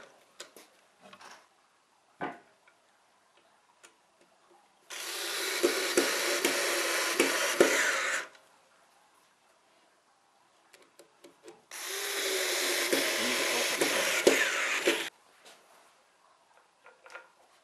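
Cordless electric screwdriver driving wood screws into wood, running twice for about three seconds each, with faint clicks of handling between the runs.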